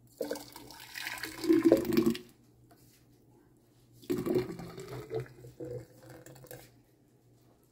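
Thick blended green juice pouring from a blender jar into a glass pitcher, in two spells. The first runs about two seconds and is the loudest; the second starts about four seconds in and tails off.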